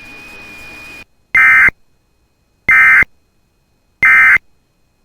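Three short, loud bursts of warbling digital data tone, about 1.3 seconds apart: the SAME end-of-message code that closes an Emergency Alert System weather alert. Before them comes about a second of faint radio hiss with a thin, steady high whine.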